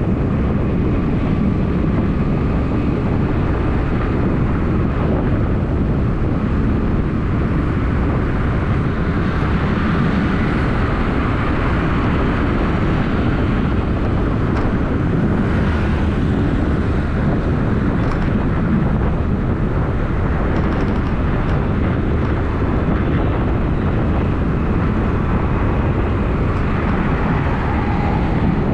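Steady low rumble of a car driving: engine and tyre road noise.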